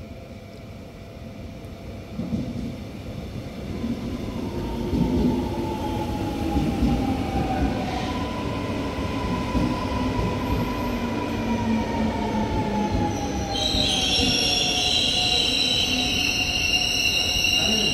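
Electric commuter train pulling into the station: a rumble that grows louder from about two seconds in, with the traction motors' whine falling in pitch as it slows. From about three-quarters of the way through, a strong high squeal of the brakes and wheels as it draws to a stop.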